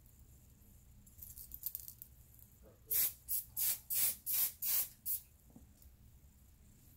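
A Cantu Shea Butter Frizz Free Finisher hairspray bottle sprayed six times in quick succession, about three short hisses a second, misting onto hair.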